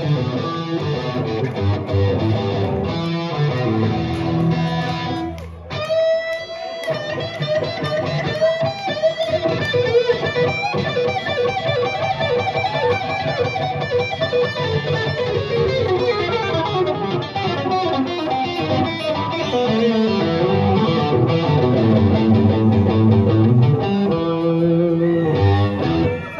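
Live rock band playing, with electric guitar out in front over bass, drums and keyboards.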